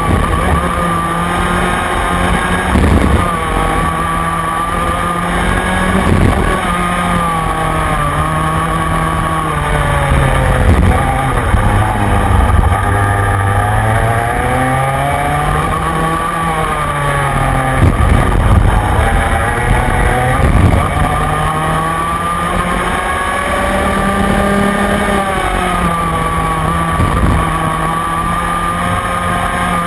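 Rotax Minimax kart's 125 cc two-stroke engine racing flat out, heard onboard, its pitch falling and rising as it brakes and accelerates through the corners. The deepest dip comes around the middle, where it slows for a tight turn before pulling hard again.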